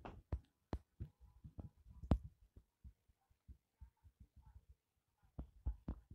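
Faint, irregular taps and low thumps from a tablet being handled while a finger writes on its touchscreen, with the loudest knock a little after two seconds.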